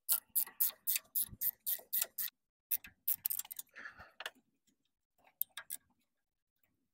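A 14 mm ratcheting wrench clicks in quick runs, about four or five clicks a second, as it is swung back and forth to undo the bolts of an engine's upper torque rod (dog bone). The runs stop and start, with a last few clicks about five and a half seconds in.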